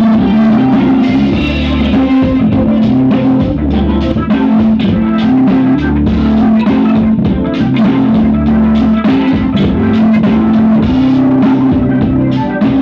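Loud music with guitar, drums and heavy bass played through a 5200 power amplifier and speakers on test.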